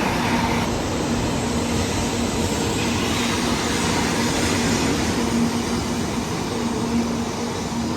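Shinkansen high-speed train running at speed: a steady rushing noise with a low hum through it, beginning to fade near the end.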